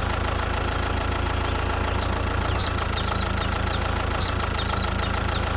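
Engine idling steadily with a low even rumble. Birds chirp over it in short falling whistles, in two bursts.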